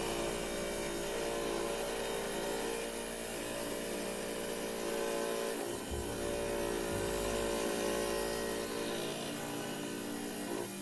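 Diamond-blade trim saw running steadily with an even motor whine as it cuts through a geode.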